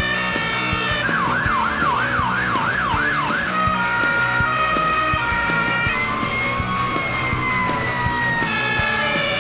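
Emergency-vehicle sirens over background music with a steady beat: first a fast wailing siren sweeping up and down, then an alternating two-tone siren, then a slowly falling tone near the end.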